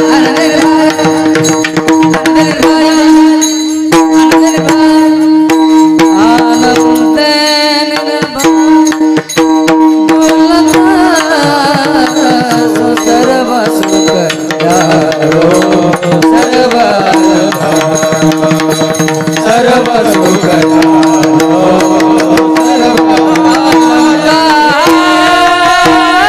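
Varkari devotional bhajan music: a steady drone under rapid hand-drum strokes, with a melody that bends up and down from about ten seconds in.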